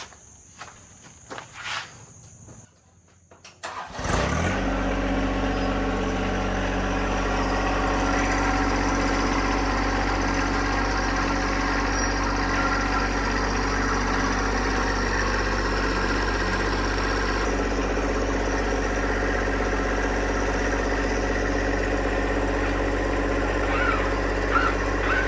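Tractor engine starting about four seconds in, then running steadily at a constant speed. A few light clicks come before it starts.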